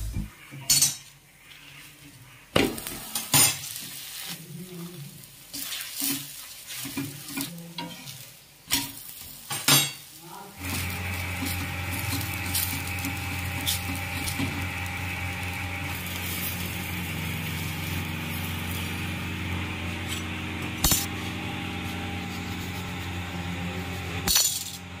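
A paratha frying on an iron tawa, a steel spatula clinking and scraping against the pan as it is pressed and turned, with a sizzle. From about ten seconds in a steady hum joins and runs under the frying.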